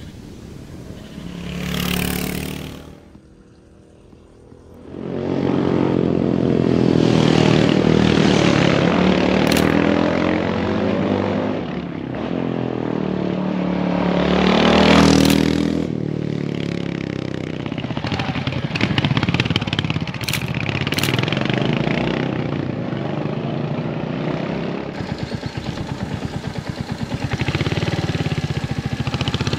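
Royal Enfield Hunter 350's single-cylinder engine riding past: a short swell about two seconds in, then engine noise rising to a loud pass near the middle and fading. It then runs steadily under way.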